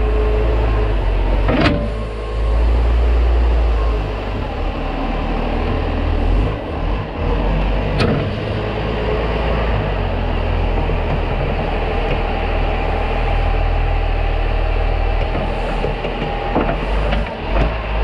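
Massey Ferguson tractor's diesel engine running steadily as its front loader works straw bedding, the low drone dipping briefly now and then. A few sharp knocks sound over it, about two, eight and sixteen and a half seconds in.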